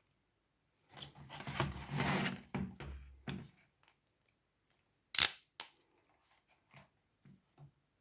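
Hands handling a bicycle helmet's strap and pad, rustling and scraping for about two and a half seconds, then one sharp plastic click about five seconds in, followed by a few faint clicks.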